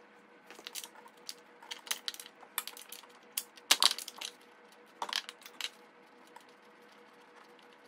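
Irregular metallic clicks and rattles of hand tools and fasteners being worked on a lawn tractor's engine cover. The clatter is loudest about four seconds in and stops a little before six seconds.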